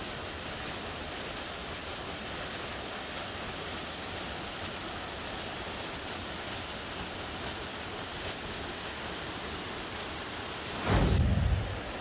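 Steady rushing of a waterfall cascading over rocks. Near the end, a brief loud low rumble lasts about a second.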